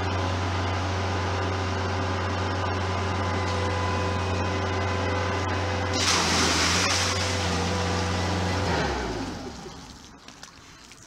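Skid steer loader's engine running with a steady hum. About six seconds in, water and ice pour from its bucket with a brief rushing splash. Near nine seconds the engine shuts off and winds down.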